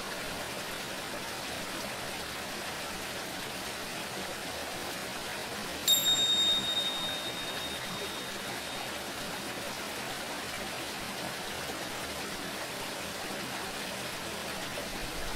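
Steady hiss of running water, with a single tingsha strike about six seconds in: a high, bright ring that fades away over about three seconds.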